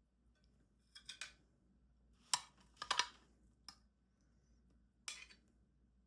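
Utensils clinking and scraping against a dish of food, in a handful of short bursts.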